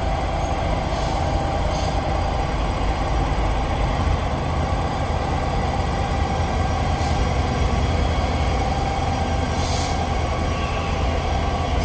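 Freight train rolling past with its diesel locomotives running, a steady low rumble of engines and wheels on rail, with a few brief high hisses.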